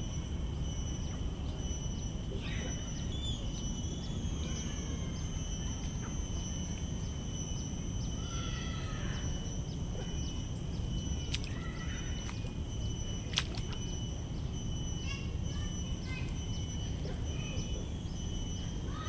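Outdoor garden ambience: birds chirping now and then over a steady low rumble and a constant high-pitched tone, with two sharp clicks in the middle.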